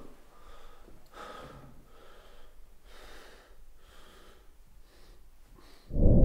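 A man breathing quietly in and out, several slow breaths in a row, as he concentrates before casting a spell. Near the end a loud magic-spell sound effect cuts in: a steady hum over a deep rumble.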